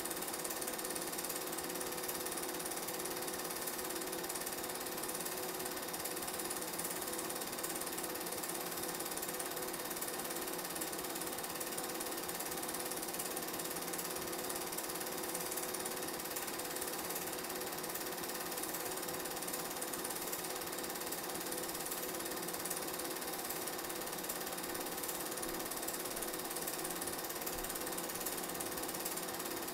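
Steady mechanical whirr and clatter of a film projector running, heard on the soundtrack of a silent home-movie transfer, unchanging throughout.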